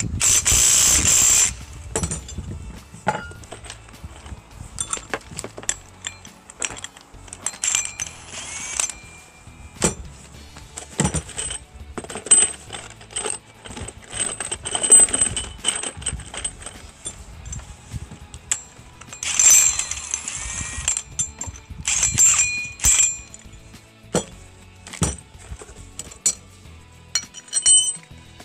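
Cordless impact wrench run in short bursts, driving nuts onto the threaded posts of sawmill leveling feet; the loudest burst comes right at the start. Between bursts, steel parts and nuts clink as they are handled.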